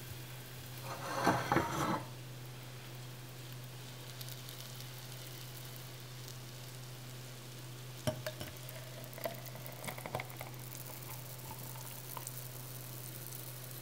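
Saturated sugar syrup being poured from a metal pot into a drinking glass. A few light clicks and knocks come from the pot being handled, then a faint liquid hiss in the last few seconds. A steady low hum sits underneath, with a short louder rustle about a second in.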